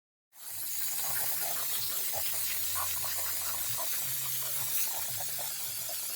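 Waterfall pouring into a natural swimming pond: a steady splashing hiss that cuts in suddenly after a moment of silence, with a low hum underneath.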